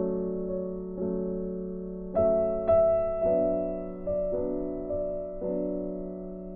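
Slow background keyboard music with a piano sound, chords struck every half second to a second and each one fading away.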